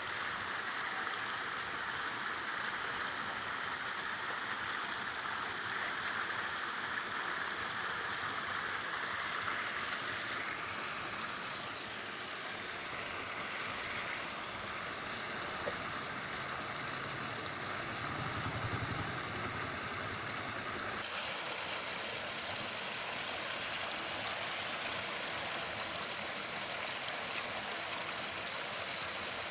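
Steady hiss of rushing water, with a sudden shift in tone about twenty-one seconds in.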